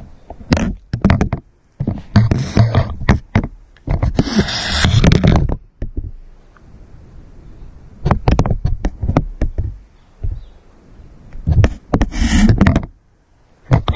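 Close, irregular knocks, scrapes and rubbing as a small white dog mouths and pushes a rubber ball, in loud bursts with quieter gaps between, the longest scraping burst about four seconds in.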